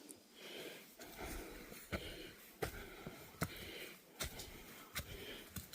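A hiker breathing hard while climbing, a soft puff of breath roughly every second, with footsteps clicking on the trail in a steady walking rhythm.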